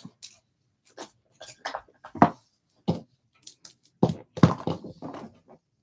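Irregular light knocks, taps and clicks of small objects being handled and set down on a desk, about a dozen over a few seconds, the loudest in the middle.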